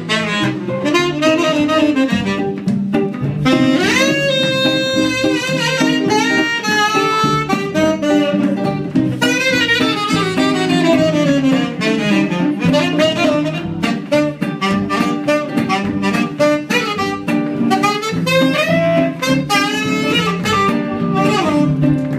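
Live swing jazz: a tenor saxophone plays a solo melody over a strummed acoustic guitar and a plucked double bass.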